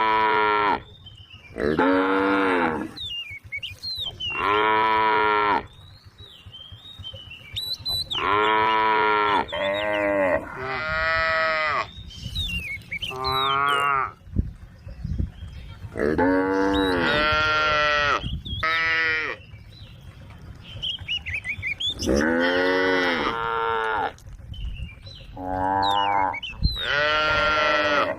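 Several cows mooing, about a dozen long, loud moos one after another, some overlapping, with thin high chirps in the gaps between them.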